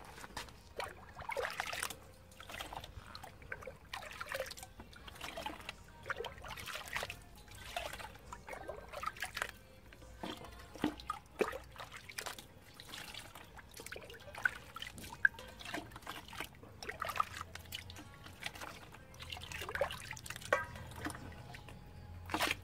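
A metal ladle scooping liquid and pouring it back into a plastic bucket, again and again, with irregular splashes and trickles.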